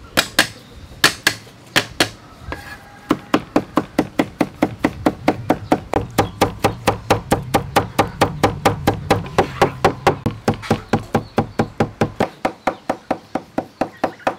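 Cleaver chopping on a wooden cutting board, mincing: a few scattered strokes, then about three seconds in, fast steady chopping at about four to five strokes a second.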